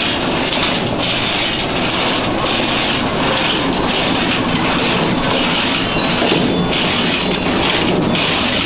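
Cashew cutter machine running and cracking raw cashew nuts: a dense, continuous clattering with a high hiss that swells and fades about once a second.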